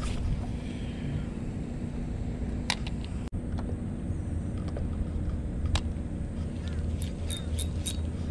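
Small boat's outboard motor idling with a steady low hum, with a few sharp clicks from the spinning reel and tackle being handled, several in quick succession near the end.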